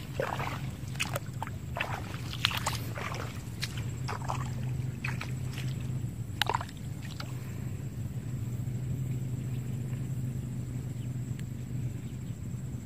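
Irregular sloshes and splashes of shallow muddy water over a steady low hum; the splashes stop about seven seconds in.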